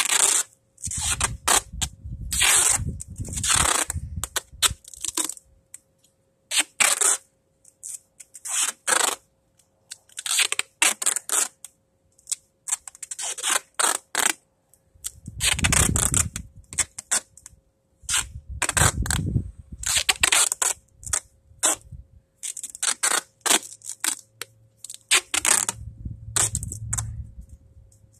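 Duct tape being ripped off the roll again and again in short and longer pulls, with bumps from handling the roll and cable.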